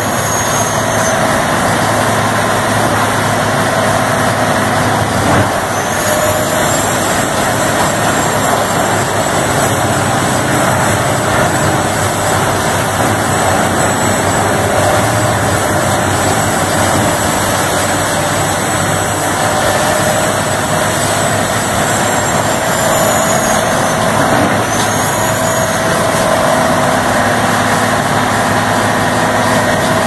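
Vermeer HG8000 grinder's 1,000 hp diesel engine running hard under load while it shreds trees: a loud, steady din of engine and grinding wood. Over it the turbo's high whistle rises about a fifth of the way in, holds, and falls away about three quarters of the way through, then rises and drops once more briefly.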